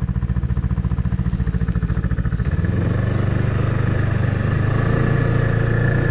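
Snowmobile engine running with an even pulsing beat, then about two and a half seconds in the throttle opens and it runs smoother and steadier, with a faint high whine, as the sled gets under way.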